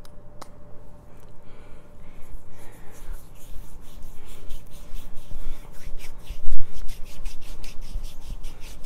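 Hands rubbing body lotion into the skin: quick, even rubbing strokes at about three or four a second, starting about two seconds in, after a single sharp click at the start. A heavy low bump comes a little past the middle.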